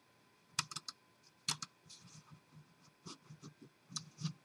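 Faint, irregular clicks from a computer mouse and keys, about ten spread over a few seconds, as a mouse that isn't responding is clicked again and again.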